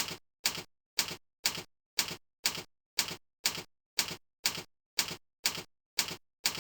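Clock ticking, an even two ticks a second, each a sharp click with a brief tail, with dead silence between ticks.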